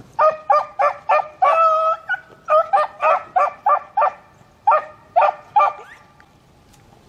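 Beagle hounds baying on a rabbit's scent trail: a run of short, loud barks about two a second, a few drawn out longer, stopping about six seconds in.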